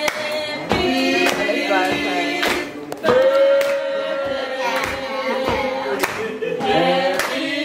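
Music with a singing voice holding long notes, over scattered sharp beats.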